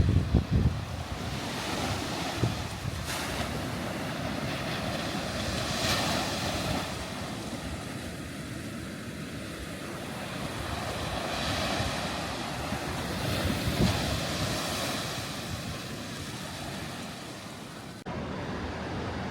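Atlantic Ocean surf breaking and washing up the beach, swelling and easing in slow waves, with wind buffeting the microphone in a low rumble near the start. The sound changes abruptly near the end.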